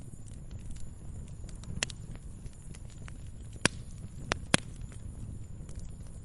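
Wood fire crackling: scattered sharp pops and snaps over a low steady rumble, with two loud pops a little past the middle.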